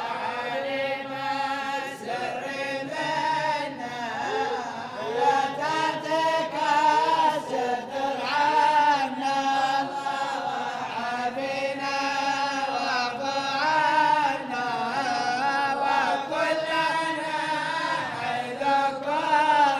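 A group of men chanting a Sufi devotional poem (qasida) together in slow, drawn-out melodic lines, in unison.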